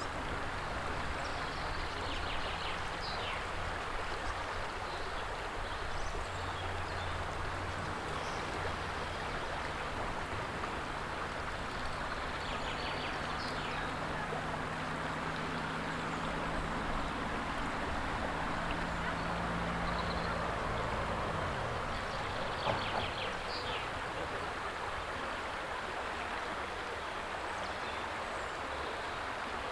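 River water flowing steadily over a shallow gravel bed, a constant rushing hiss. A low steady hum runs underneath and stops about two-thirds of the way through, and a few faint high chirps come and go.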